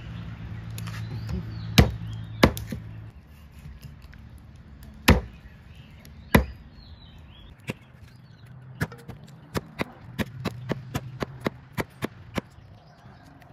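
Large kitchen knife chopping a whole snakehead fish into steaks on a wooden log chopping block, cleaving through the backbone. Four heavy chops, spaced out, come first, then a quicker run of about a dozen lighter chops.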